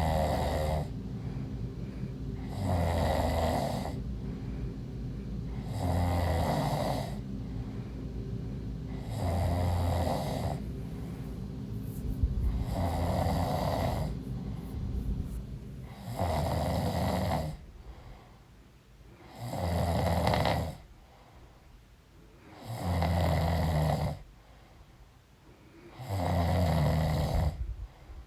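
A pregnant woman snoring in her sleep: nine snores about every three and a half seconds, each lasting about a second. A steady low hum runs under the first snores and stops a little over halfway through.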